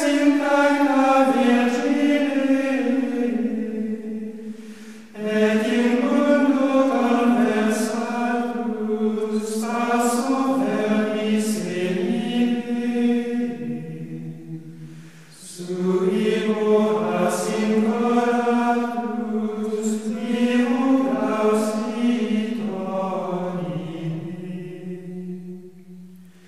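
Slow choral chant in long held phrases, with brief breaks about five and fifteen seconds in.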